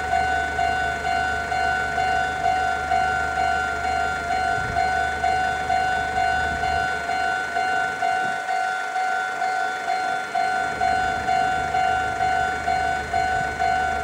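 Japanese railway level-crossing alarm: an electronic bell ringing steadily about twice a second, warning that a train is approaching.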